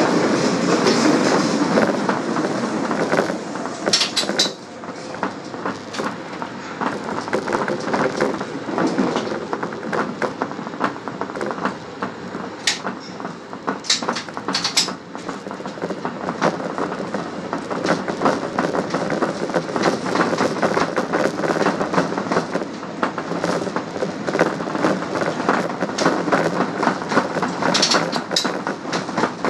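Subway train running at speed: a steady rumble of steel wheels on the rails with a constant patter of small clicks. A few sharper high clicks sound now and then.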